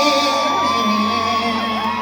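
Concert crowd cheering and whooping, many high voices gliding up and down at once over the band's music.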